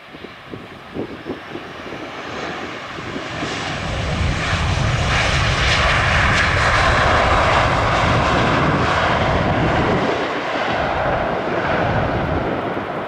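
Boeing 737-800's CFM56 jet engines on the landing rollout just after touchdown. A broad rushing jet noise builds from about two seconds in and stays loud for several seconds as reverse thrust slows the aircraft, then eases off near the end. Wind gusts buffet the microphone at the start.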